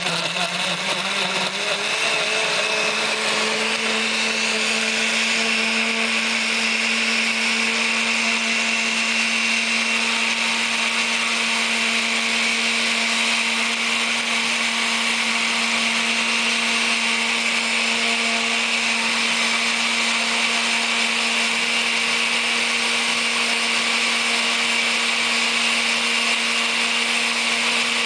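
Oster countertop blender running on its liquefy setting, blending ice cream and milk. Its motor rises in pitch over the first few seconds as it comes up to speed, then runs steadily.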